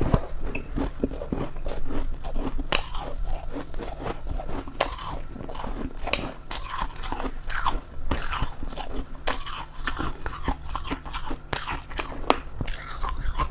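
Mouth chewing and crunching a mouthful of powdery freezer frost, picked up close by a clip-on microphone: a dense, irregular run of small sharp crackles.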